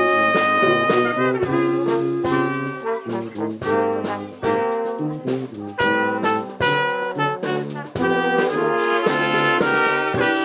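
Brass quintet of two trumpets, French horn, euphonium and tuba, with a drum kit, playing an arrangement of game show theme tunes. Held chords at the start give way to short, punchy notes over steady drum hits.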